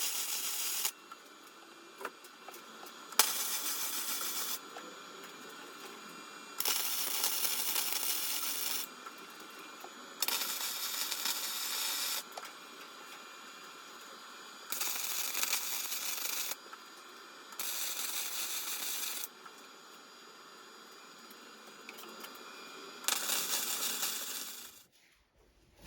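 Flux-core MIG welding arc laying short stitch welds: seven crackling bursts of one to two seconds each, separated by pauses of a second or two with a quieter steady background.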